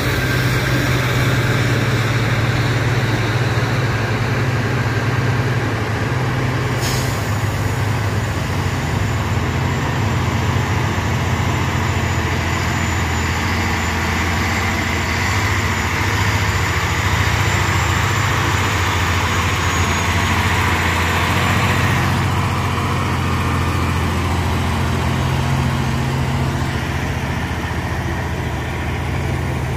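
Heavy truck engine running under load with a steady low drone and road noise. A single sharp knock comes about seven seconds in, and the higher-pitched noise eases a little after about twenty-two seconds.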